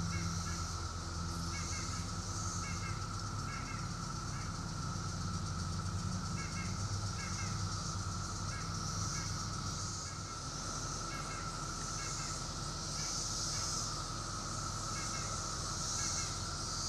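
Steady drone of a periodical cicada chorus, a single unbroken pitch. Short bird chirps repeat over it every second or so, with a low rumble underneath.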